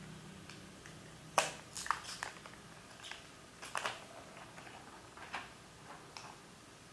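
Thin clear plastic protective film being peeled off the back of a smartphone and crinkling in the hand: a cluster of sharp crinkles about a second and a half in, more a couple of seconds later, then a few single crackles.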